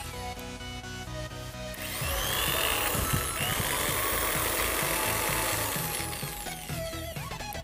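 Small corded electric drill running free, with no load, for about four seconds: it starts about two seconds in and fades away near the end. Background music plays throughout.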